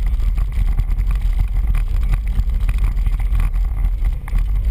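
4x4 truck driving over a rough dirt trail, heard from inside the cab. Heavy low rumble from the engine and drivetrain, broken by frequent knocks and rattles as it bounces over the ruts.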